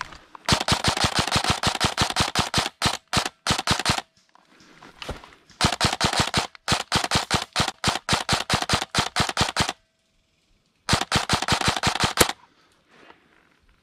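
Airsoft electric rifle (AEG) firing on full auto: three long strings of rapid, evenly spaced shots with short pauses between them.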